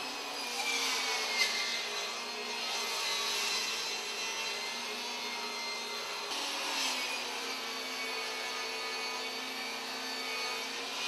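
Ryobi BT3100 table saw running and ripping a board lengthwise against the rip fence: a steady whine over the hiss of the blade cutting wood, its pitch sagging slightly in the first couple of seconds. The sound changes abruptly about six seconds in.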